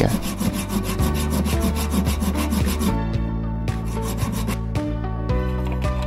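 Hand file scraping back and forth across a small turned metal nut held in a bench vise, cutting flat spots onto its round side, over background music.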